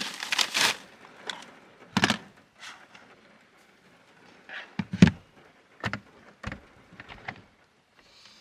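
Cooking gear being handled: a rushing noise in the first second, then a run of separate knocks and clunks, the loudest about five seconds in.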